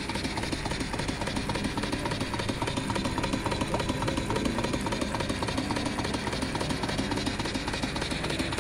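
Model stationary steam engine running fast and steadily, its fine, rapid beat of exhaust and moving parts going on without a break.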